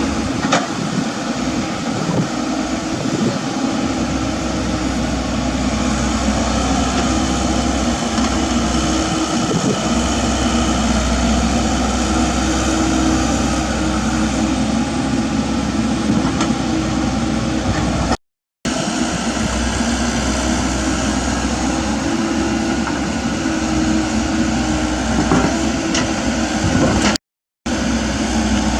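Komatsu mini excavator's diesel engine running steadily while it digs, with a deep low rumble that comes and goes and a few faint knocks. The sound cuts out completely twice, briefly.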